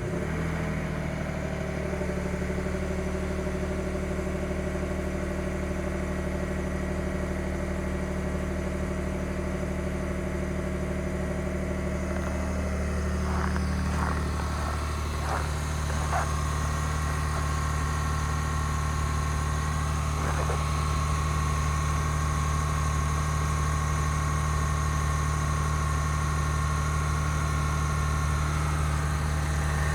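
2021 Ford F-150 PowerBoost's 3.5 L twin-turbo V6 starting from cold by remote start and running at a fast cold idle, with the idle note changing about a dozen seconds in along with a few short clicks, then a steady whine over the idle. This is the cold-start cavitating or grinding noise the owner is documenting.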